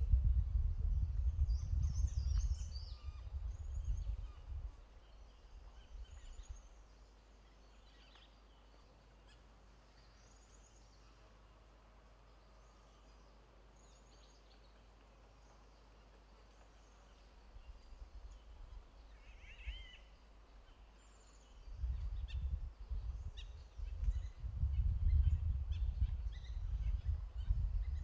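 Forest background of scattered short, high chirps from small birds, with a low rumbling noise that fills the first few seconds, fades to near quiet, and returns for the last quarter.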